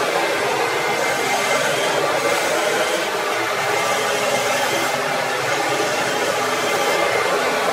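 CamVac CGV336-4 dust extractor running on both of its motors, a loud, steady rushing whine with a faint steady tone in it. Under it, a hand tool cuts a pen blank spinning on a wood lathe.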